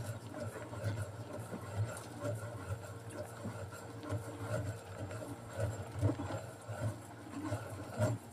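A 15 hp outboard motor idling with a steady low hum, with small irregular knocks and bumps over it.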